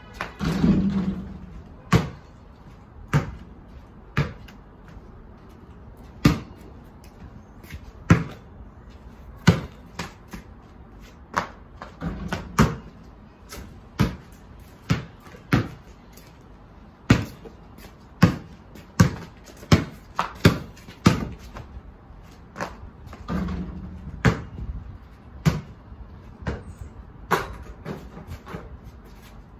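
A basketball bouncing again and again on a paved patio: sharp single thuds at uneven intervals. Three times, starting right after a shot is released, a longer rattling clang as the ball strikes the hoop's rim and backboard.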